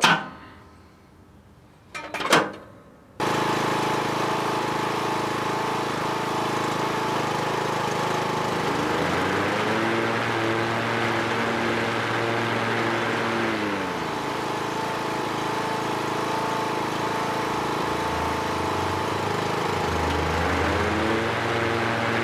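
A couple of sharp knocks, then a lawn tractor engine suddenly starts running steadily, driving the mower deck's belt and pulleys while the belt is checked to see that it runs true. Its pitch rises about nine seconds in, settles back about five seconds later, and rises again near the end.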